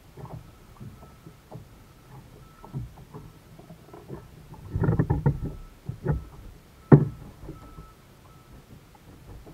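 Knocks and thumps on a plastic sit-on-top kayak as gear is handled aboard: scattered small taps, a cluster of louder thumps about halfway through, then one sharp knock about two seconds later.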